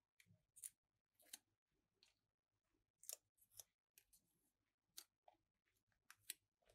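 Faint paper and adhesive-backing crackles as a sticker's backing is peeled off and the paper is pressed onto a notebook page by hand, in a scattered series of short scratchy rustles.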